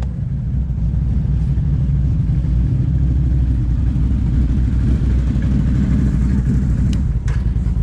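Can-Am off-road machines, a Renegade ATV and a Maverick side-by-side, idling together in a steady low rumble as they warm up from a cold start. A couple of light clicks near the end.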